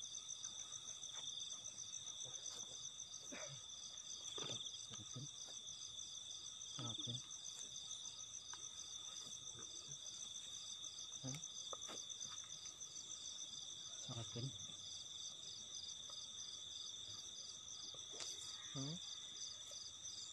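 Night insects, crickets or katydids, calling together in several high pitches. One call is steady and the others pulse rapidly and evenly without a break. A few faint, brief low sounds come through now and then.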